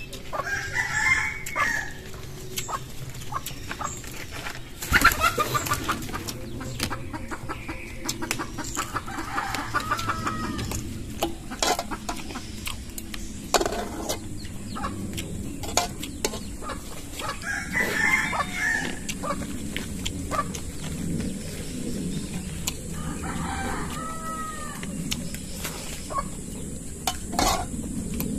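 Chickens calling several times in the background, clucking and crowing. Close by are repeated clicks and knocks of shellfish and a spoon being handled while eating, the loudest knock about five seconds in.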